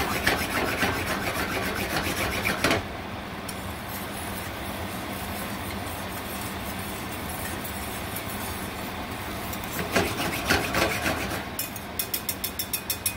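Wire whisk scraping around a stainless steel skillet of butter and hot sauce, in two bouts: the first three seconds and again about ten seconds in. Near the end come quick, rhythmic strokes of the whisk against the pan, several a second, over a steady background hiss.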